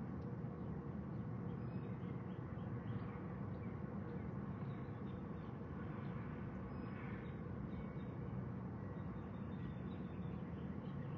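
Steady low outdoor background noise, with a few faint, short, high chirps over it.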